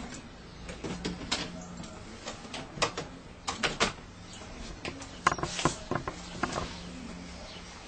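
Hands working on pet door parts and carpet: irregular clicks, taps and rustles, with a faint steady hum underneath.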